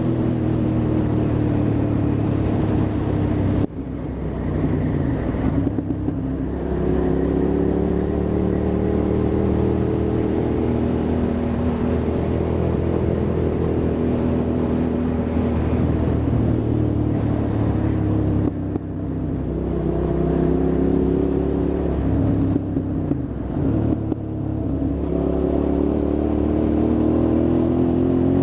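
Hyosung GT650R motorcycle's V-twin engine accelerating and decelerating, its note falling and rising again several times. The sound breaks off briefly about four seconds in and again a little past halfway.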